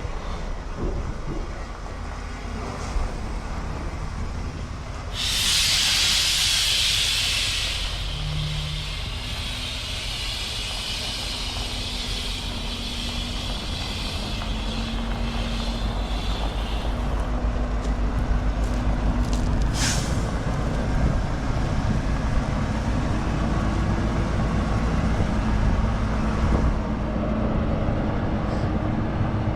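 Tractor-trailer's diesel engine running, with a loud air-brake hiss about five seconds in that fades over the next several seconds and a short sharp hiss near the twenty-second mark. The engine note grows stronger toward the end.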